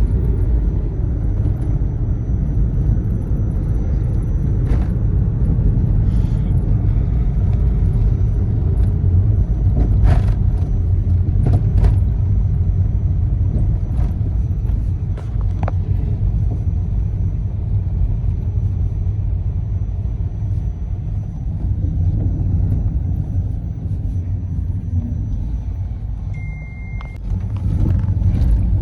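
Steady low road and engine rumble of a car being driven, with a few scattered clicks and a short single beep near the end.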